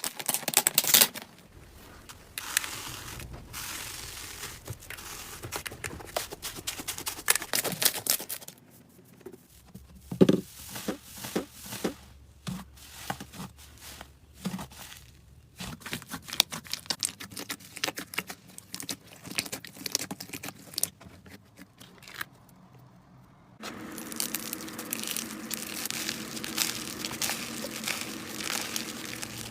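Slime being handled by hand: crackling, popping and tearing as it is squeezed, stretched and pulled apart. It comes in several short clips, each with its own texture.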